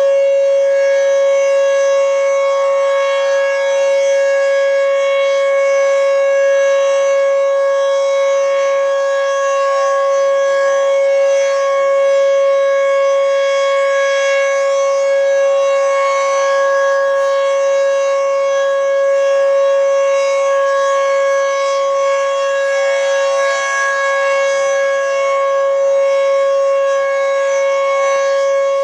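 Federal Signal Fedelcode Model 20 dual-rotor outdoor warning siren sounding a steady tone at full speed during a test. The pitch holds level, with only slight wavering in loudness.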